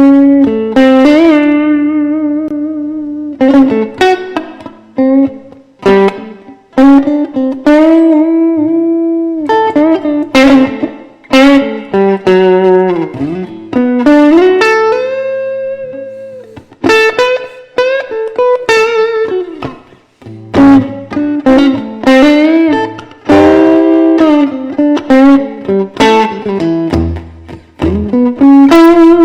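Electric guitar playing a blues solo: single-note lines with string bends and vibrato, some notes picked sharply and others left to sustain.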